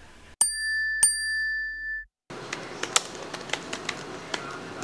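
A bell-like ding struck twice about half a second apart, ringing and then cutting off abruptly. After that, typing on a laptop keyboard: irregular key clicks.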